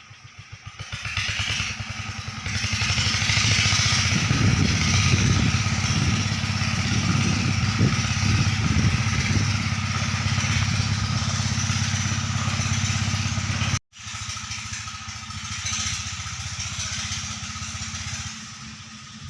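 Engine of a river sand-suction pump machine running, picking up over the first few seconds and then running steadily and loud. It cuts out abruptly for an instant about two-thirds of the way through, resumes, and drops in level near the end.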